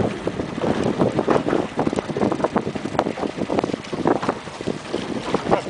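Wind buffeting the microphone, with irregular splashing and slapping of water at a boat.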